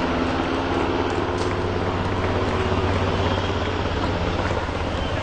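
Steady engine rumble with a continuous low drone and a few held tones that fade after about three seconds.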